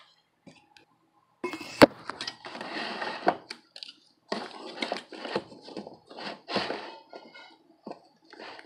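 Handling noise from a laptop's thin metal keyboard plate being moved and pressed: irregular scraping and rattling, with one sharp click about two seconds in and a few lighter clicks later.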